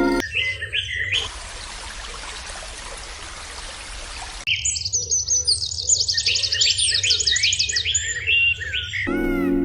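Small birds chirping: a few chirps at first, then a steady hiss for about three seconds, then a dense run of rapid chirps with many short falling notes until music comes back in near the end.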